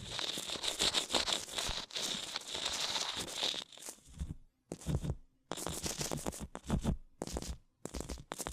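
Close-miked ASMR scratching and crackling: dense, rapid scratchy noise for about four seconds, then broken into short bursts with brief silent gaps.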